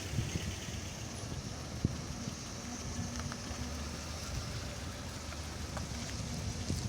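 Steady hiss of rain, with the low hum of a vehicle's engine underneath.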